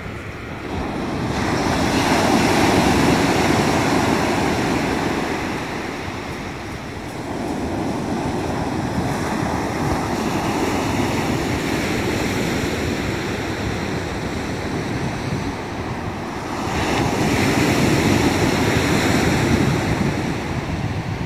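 Sea surf breaking and washing up a pebble beach, swelling loudest a couple of seconds in and again near the end.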